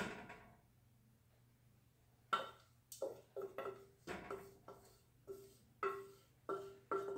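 A utensil knocking and scraping against a stainless steel saucepan as cooked rose hips are scraped out into a muslin-lined sieve. There is one knock at the start, then from about two seconds in a run of short ringing clanks at an uneven pace, each at the same pitch.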